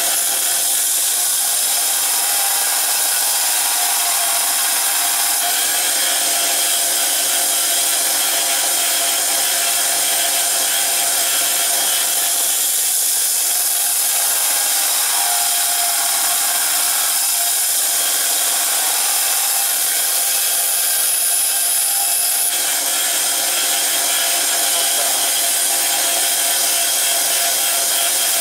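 Bench grinder's belt-sander attachment running steadily while a steel knife blade is held against the abrasive belt, grinding the blade's bevels.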